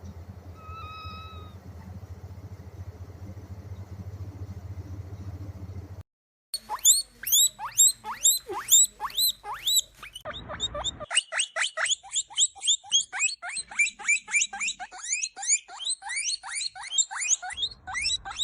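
A steady low hum for about six seconds, then a fast run of high, sweeping chirping calls, several a second, from an animal.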